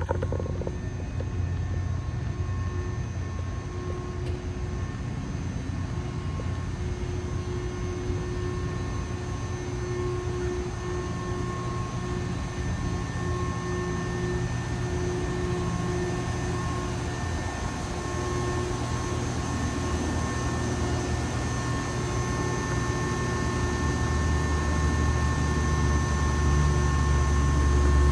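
Electrical power boxes humming: several steady held tones over a low rumble, with the rumble growing louder in the last few seconds.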